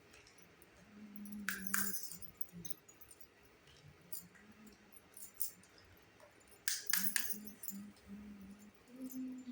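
Small miniature toy-kitchen pieces being handled and set down: sharp clicks and clinks, two a little under two seconds in and a quick cluster of three around seven seconds, with faint rubbing between.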